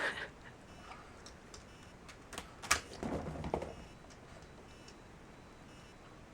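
Sparse light clicks, then a sharp click and a short clatter about two and a half to three and a half seconds in: a dog moving about and handling its toys at a toy box.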